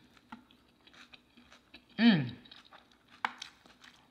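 Close chewing of a fried fish taco: soft wet mouth clicks and smacks, with a few sharper crunchy clicks. About two seconds in there is one short falling hum, a voiced "mmm".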